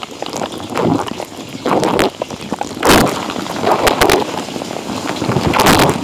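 Water spraying inside a running Electrolux dishwasher, heard from inside the tub: jets of wash water hitting the dishes and rack, swelling into heavy splashes about once a second.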